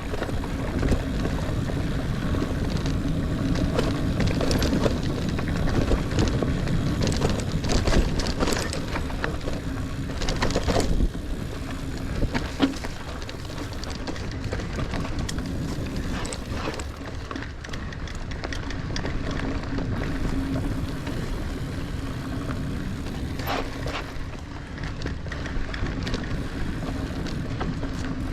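Niner Air 9 RDO 29er mountain bike riding sandy dirt singletrack: a continuous rolling rumble of the tyres and drivetrain, with scattered short knocks and rattles from bumps, most of them in the first half.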